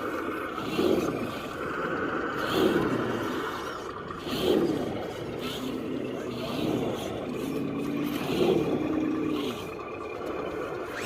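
Small electric motors of RC crawlers whining, their pitch repeatedly sweeping down and up as the throttle is worked, about once every two seconds.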